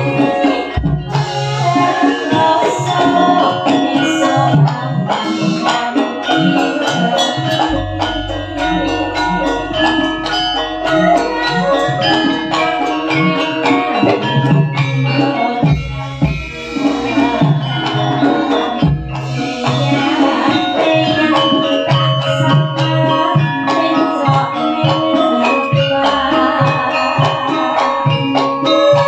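Live campursari music: a female singer on a microphone over a Javanese ensemble of tuned metal percussion and hand drums, with a steady beat.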